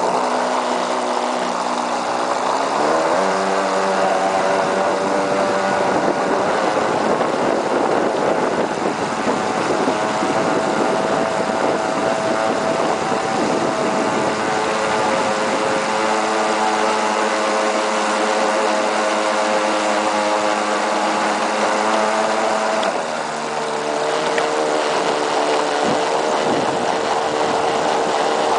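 RC speedboat's 3300kV brushless electric motor running on a 4S LiPo over water spray, its pitch shifting with the throttle: rising about three seconds in and dropping briefly around twenty-three seconds in.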